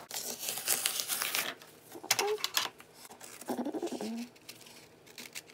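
Scissors cutting through a sheet of wax paper covered in masking tape, the stiff paper crinkling and rustling as it is handled. The sound comes in several bursts, the longest at the start.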